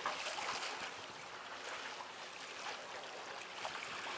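Small sea waves lapping against the concrete tetrapods of a breakwater: a faint, steady wash of water with light splashes.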